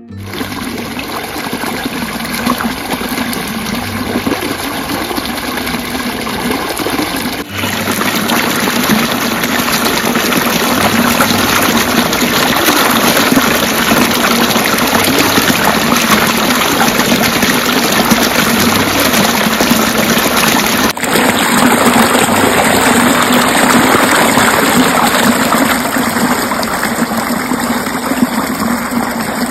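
Water gushing loudly and steadily along a small field irrigation channel. It is briefly broken twice, about a quarter and about two-thirds of the way through.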